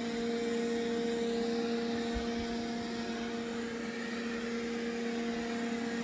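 Roborock S5 robot vacuum running on carpet, on what the owner believes is its medium suction setting: a steady hum with an even whine over fan noise.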